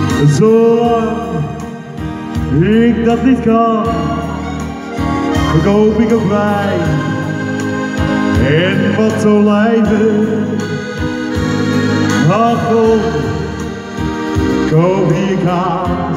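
Men singing a song into microphones through a PA speaker, over a backing track with sustained organ-like keyboard chords. The sung phrases come in lines with short breaks between them.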